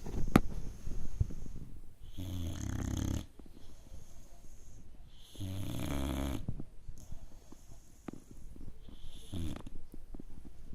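Five-month-old boxer puppy snoring in its sleep: three snores about three seconds apart, the last one short. A couple of sharp clicks come in the first second or so.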